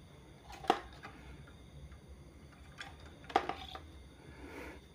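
Two sharp knocks about three seconds apart as a TV circuit board and tools are handled on a workbench, with a soft rustle near the end over a faint low hum.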